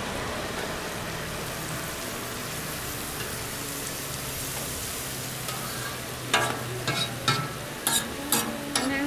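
Food sizzling steadily on a street-stall toast griddle. In the last few seconds there is a quick run of sharp clacks.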